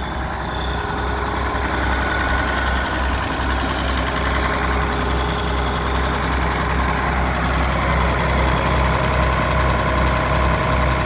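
1978 White 2-105 tractor's diesel engine idling steadily with a deep, even hum.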